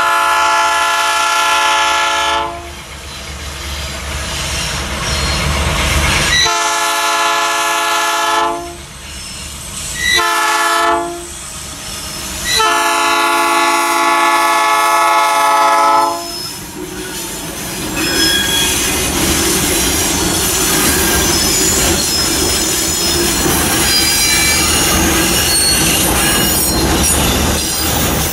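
Diesel freight locomotive's multi-tone air horn sounding the level-crossing signal: two long blasts, a short one and a long one, over the low rumble of the locomotive. After that the freight wagons roll over the crossing with steady rail noise and high-pitched wheel squeal.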